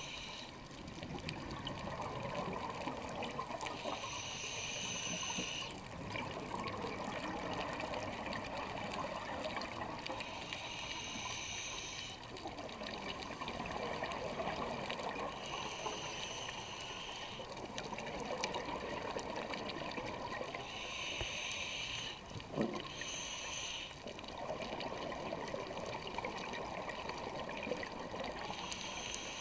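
Scuba regulator breathing underwater: a hissing inhale about every five to six seconds, each followed by the bubbling gurgle of the exhale. A single short knock about three-quarters of the way through.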